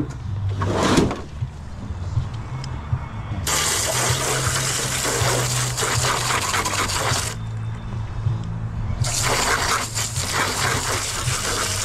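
Water spraying from a hose onto a P-tac air-conditioner unit to wash off calcium and lime deposits: a brief spurt about a second in, then two long sprays of about four and three seconds. A steady low hum runs underneath.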